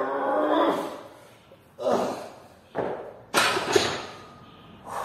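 A weightlifter's strained grunt trails off as he stands out of a heavy barbell back squat, followed by sharp, heavy breaths. A little past halfway the loaded barbell clanks twice into the steel J-hooks of a Rogue squat rack as it is racked, with a brief metallic ring.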